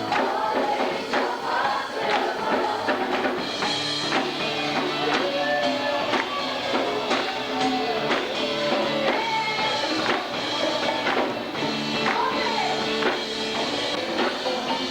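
Live church worship music: voices singing a melody over a band, with drums or other percussion keeping a steady beat.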